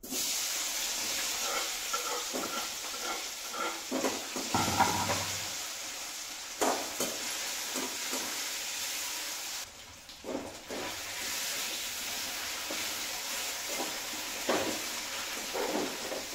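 Masala- and flour-coated paneer cubes sizzling as they drop into hot oil in a metal kadhai, the sizzle starting suddenly and carrying on as they fry. A spatula clinks and scrapes against the pan now and then as the cubes are stirred.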